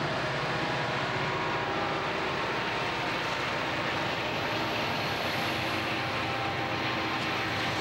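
Several diesel-electric freight locomotives passing in a multi-unit lash-up, engines running with a steady drone over wheel rumble on the rails.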